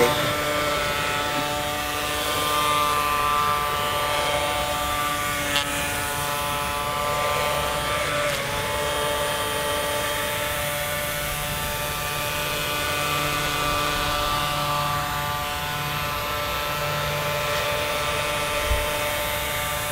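Small 3-volt toy DC motor driving a plastic propeller on a Styrofoam boat, running steadily with an even buzz that vibrates the foam hull.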